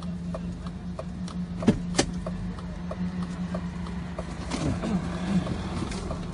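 A car's flasher relay ticking evenly, about three clicks a second, over the steady low hum of the idling engine, heard inside the cabin. Two sharper knocks come about two seconds in.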